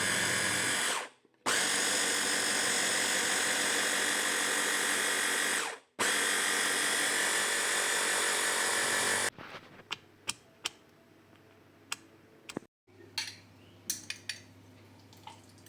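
A small electric motor whirring steadily at high speed for about nine seconds, stopping briefly twice, then cutting out and leaving a few scattered clicks.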